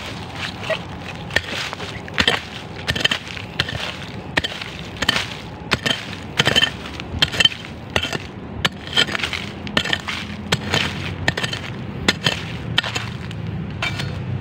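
A hand hoe striking into soil to dig out a metal detector target: repeated sharp strikes, about two a second.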